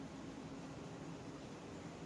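Steady hiss with a low hum, like a small blower running, cutting in abruptly.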